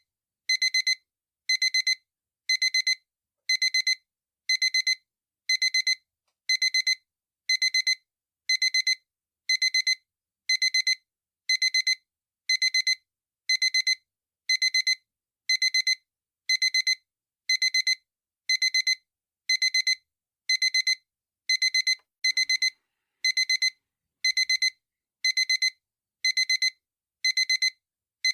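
Digital alarm clock beeping: a quick cluster of high-pitched electronic beeps, repeating steadily about once a second.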